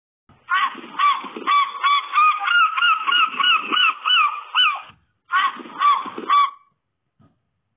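Goose honking: a rapid series of short, repeated calls, breaking off briefly about five seconds in and then a few more honks.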